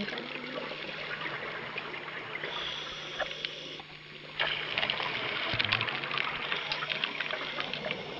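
Underwater rushing and bubbling water with a faint steady low hum. It drops briefly just before the middle, then comes back louder and crackling about four and a half seconds in.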